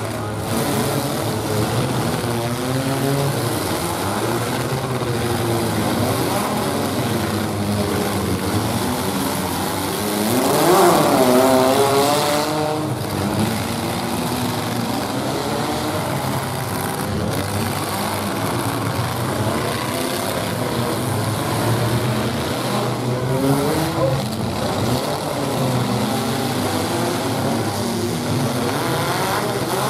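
Several compact pickup truck engines running and revving together in a demolition derby, their pitch rising and falling as they throttle up and back off. One engine revs hard and loud about a third of the way through.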